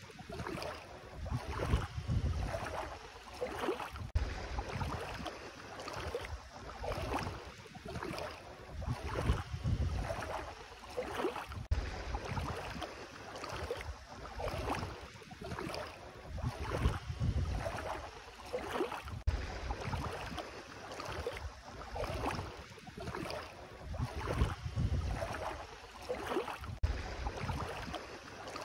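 Bare feet wading through ankle-deep seawater, each step sloshing and splashing in a steady walking rhythm, with wind buffeting the microphone in low rumbles.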